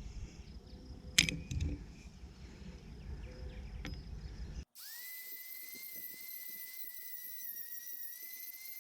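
Soft rustling and handling noise with a sharp click, then after a sudden break a steady high-pitched whine from a small motor that falls in pitch as it winds down near the end.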